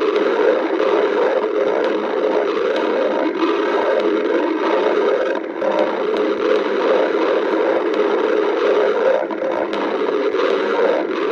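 A hungry person's stomach growling in a continuous rumble, with brief lulls about five and nine seconds in.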